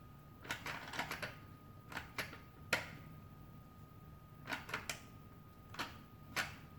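Irregular sharp clicks and taps from the old Raggedy Ann & Andy toy bank's mechanism as it is handled and its parts are pressed, over a faint steady high whine that starts about a second in.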